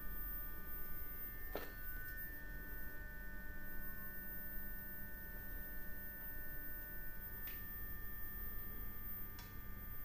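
Electric furnace running: a steady low electrical hum with several steady high whining tones, broken by three faint ticks.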